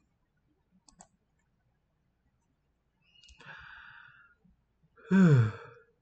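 A person breathes in and then lets out a voiced sigh that falls in pitch, the loudest sound near the end, with a faint mouse click about a second in.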